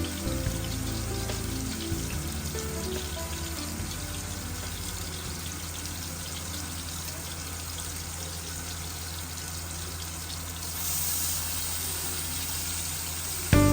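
Food sizzling as it fries in a hot pan, a steady hiss over quiet background music. The hiss brightens about eleven seconds in.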